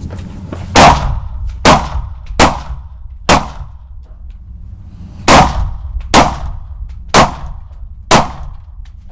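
Rifle shots fired at a steady pace on a shooting course: eight sharp reports in two strings of four, each about a second apart, with a pause of about two seconds between the strings. Each shot has a short echo.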